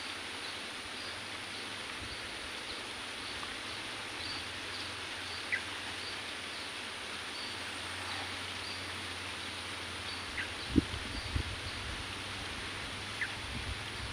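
Outdoor rice-field ambience: a steady hiss with faint, short, high chirps scattered through it. A few soft low thumps come about two-thirds of the way in.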